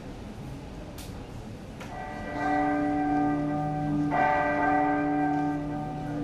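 A deep bell-like tone from the play's sound track swells in about two seconds in and is struck again about two seconds later, ringing on with a steady hum.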